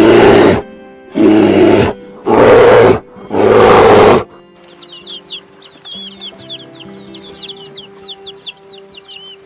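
Four loud, harsh animal calls in quick succession, each just under a second long. About four seconds in they give way to background music with a rapid run of high chirps, like chicks peeping.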